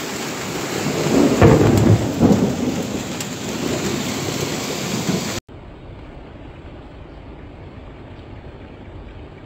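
Heavy rain in a storm, a dense steady hiss, with a low rumble of thunder swelling about a second in. About five seconds in the sound cuts off abruptly to a much quieter steady outdoor background.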